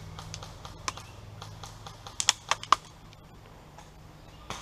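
Airsoft gunfire: scattered sharp clicks and snaps, with a quick run of four loud ones a little over two seconds in and one more near the end.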